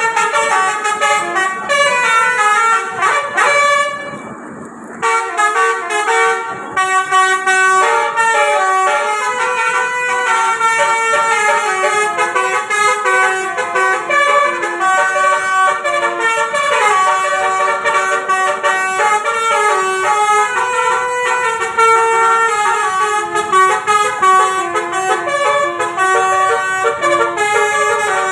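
Bus 'telolet' basuri horn, a set of air horns playing a long melody of quickly changing notes, with a brief break about four to five seconds in.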